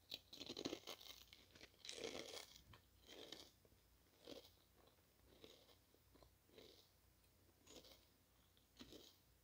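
Crunching and chewing of Lay's sour cream and onion potato chips, close to the microphone: a few loud crunching bites in the first three seconds, then softer chews about once a second.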